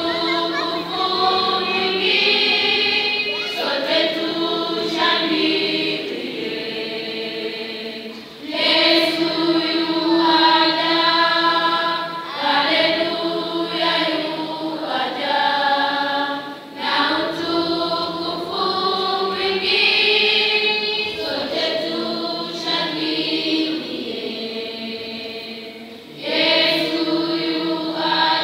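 Children's choir singing in Swahili in long held phrases, with brief pauses between phrases about every eight to nine seconds.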